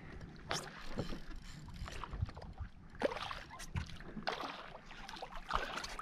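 Light splashing and water sloshing alongside a plastic kayak, with scattered irregular knocks and handling noises on the hull.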